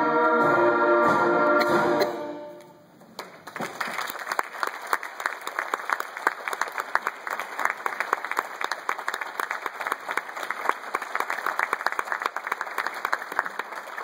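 An elementary school concert band of winds and brass holds its final chord, which dies away about three seconds in. Audience applause follows.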